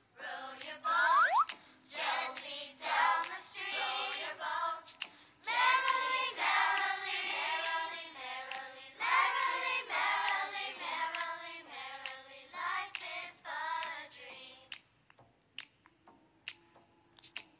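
Children's nursery-rhyme music: voices sing a melody over a clicking, ticking beat, with a quick rising glide about a second in. The singing stops about 15 seconds in, leaving only light clicks.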